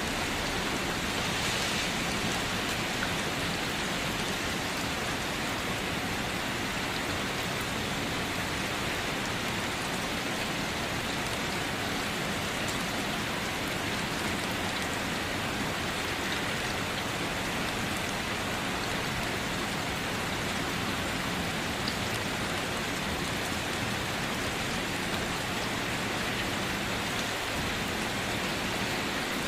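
Steady rain falling on a surface.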